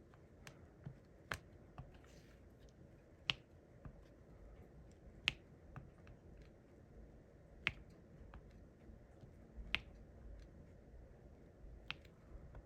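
Diamond painting pen tapping resin drills into place on the canvas: sharp little clicks, the loudest about every two seconds with fainter taps between.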